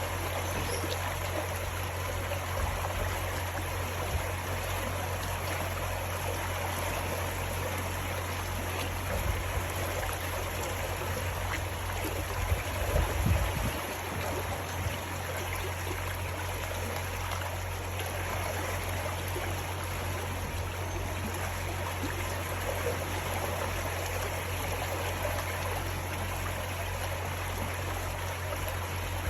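River water flowing gently: a steady rushing murmur, with a constant low hum underneath and a few brief low bumps about halfway through.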